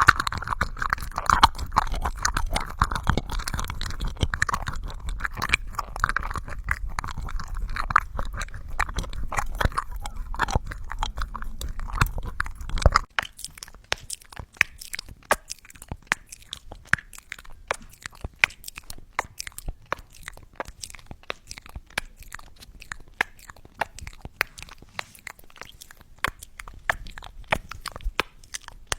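Close-miked ASMR mouth sounds: a dense run of rapid wet clicks and smacks, which about thirteen seconds in switches abruptly to sparser, drier clicks.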